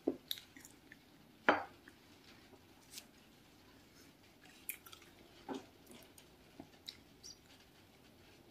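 Soft eating sounds: a sip from a ceramic coffee mug, then a single knock about a second and a half in as the mug is set down on a glass tabletop. After that come sparse small clicks and crackles of a crumbly-topped bun being torn apart and chewed.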